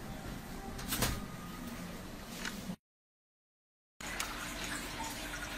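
Kittens scuffling and rustling on bedding while playing with a feather wand, with a sharp clack about a second in. The sound then cuts out to dead silence for about a second and comes back as a steady hiss with a faint low hum.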